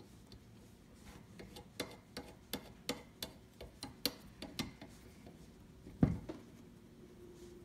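Small snap-fastener parts clicking and tapping against the metal die of a KAM snap press as they are fitted by hand: a quick run of light clicks, then a single low thump about six seconds in.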